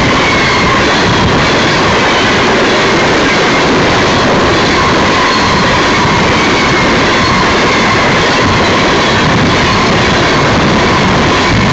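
Empty Union Pacific coal hopper cars rolling past at speed: a loud, steady rumble and rattle of steel wheels on rail, with a faint high whine running through it.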